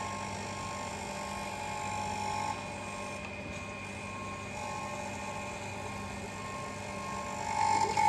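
XYZ 1020 surface grinder running with its table traversing back and forth under power: a steady motor hum with a whine over it. The whine drops out for about two seconds mid-way and swells loudest near the end, where the table reaches the end of its stroke.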